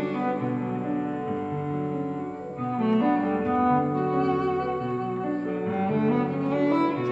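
Background music: bowed strings, led by cello, playing sustained notes that change about every second.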